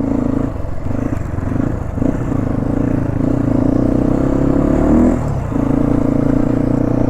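Motorcycle engine running while riding, rising in pitch for about a second and a half, then dropping sharply about five seconds in and settling back to a steady note.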